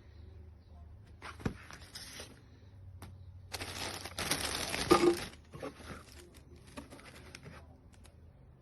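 Rustling and crinkling in several bursts, loudest in a longer stretch about four to five seconds in.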